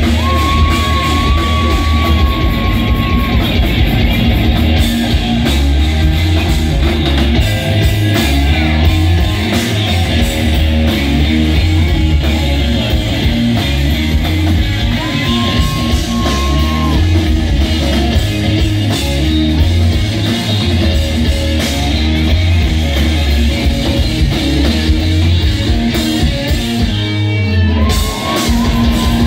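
Live rock band playing loudly: electric guitars over bass and drums, with a few long held high notes. The low end drops out briefly near the end before the band comes back in.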